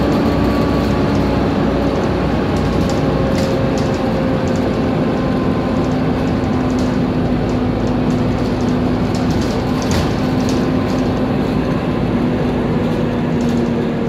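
Volvo B7TL double-decker bus heard from inside while driving, its drivetrain giving a loud steady whine, the 'Hoover' sound, that drifts slowly in pitch over the running noise, with the odd short rattle from the body.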